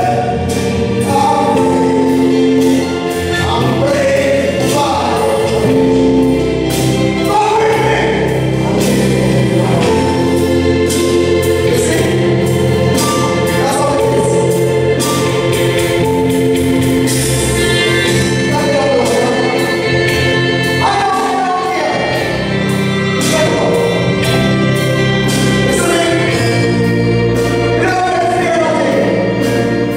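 Gospel song: a man singing lead into a handheld microphone over amplified accompaniment with a held bass line and a steady beat, with choir voices.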